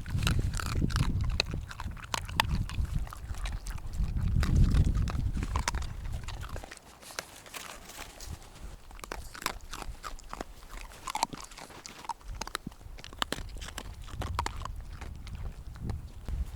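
A puppy with hiccups making many quick, irregular clicks and crunchy mouth sounds, with a few faint short squeaks. A low rumble comes in the first couple of seconds and again about four seconds in.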